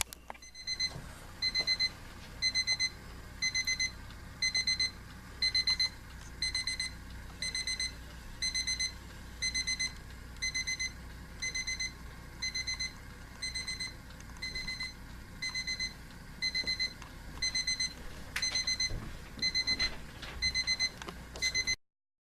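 Westclox Classic quartz battery alarm clock's alarm beeping: short groups of about four quick high electronic beeps, repeating about once a second, until it cuts off near the end. A few faint knocks near the end.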